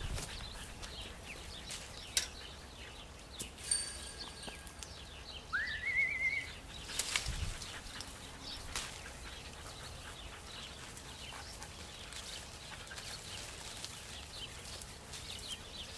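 Siberian huskies moving about on dry grass, with scattered rustles and light knocks. There is one short rising high call about six seconds in.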